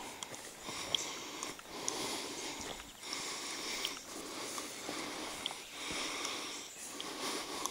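A person breathing hard close to the microphone, one long breath about every second or so, with short pauses between breaths.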